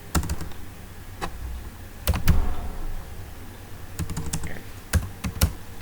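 Computer keyboard typing: irregular keystroke clicks, some in quick clusters, over a faint steady low electrical hum.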